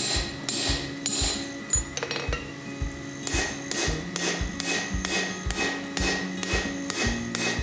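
Hand hammer striking a red-hot steel hammer head, set on a drift, against an anvil: a run of sharp metal-on-metal blows. They come irregularly at first, then settle into a steady rhythm of about two a second from roughly three seconds in.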